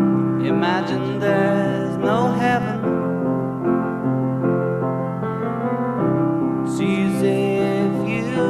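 Background music: sustained keyboard chords, with a wavering sung melody over them about half a second in and again near the end.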